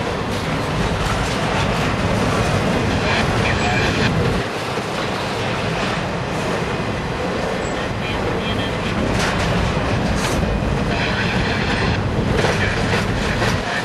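Double-stack intermodal well cars rolling past at speed: a steady heavy rumble of wheels on rail, with clickety-clack over the joints, a couple of clanks near the ten-second mark and a few short high squeals.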